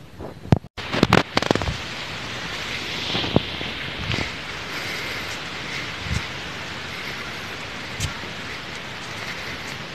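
Steady outdoor hiss with handling noise on a handheld camera's microphone. A sharp click and a brief dropout come about half a second in, then a burst of clicks and knocks, then scattered knocks over the hiss.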